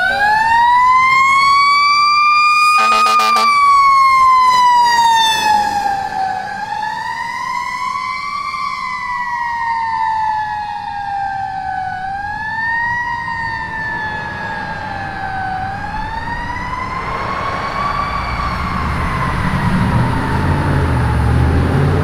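Fire engine siren on a wail, its pitch rising and falling in slow sweeps every four to five seconds, with a brief horn blast about three seconds in. Near the end the truck's engine and road rumble grow louder as it passes.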